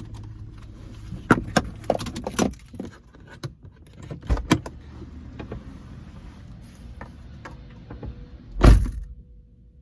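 Car keys jangling with a run of clicks and knocks over a low steady hum, then one loud heavy thump near the end, after which the hum drops away.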